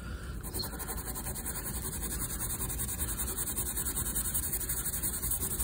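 Green scouring pad scrubbed quickly back and forth over degreaser-coated, greasy stainless steel, making a steady, hissy rubbing that pulses with each stroke.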